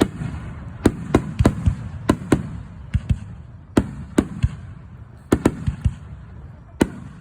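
Aerial fireworks bursting: over a dozen sharp bangs at irregular intervals, some in quick pairs, over a continuous low rumble of echoing booms.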